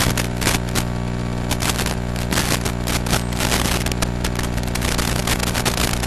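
Steady electrical buzz with crackling static, the noise recorded on the audio track of an analog FPV video receiver's DVR. The buzz holds one pitch and does not follow the drone's throttle.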